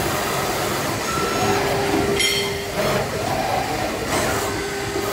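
CHAOXU CNC gantry cutting machine running, its axes moving with a steady mechanical noise and a mid-pitched whine that starts and stops twice. There is a short high-pitched chirp about two seconds in.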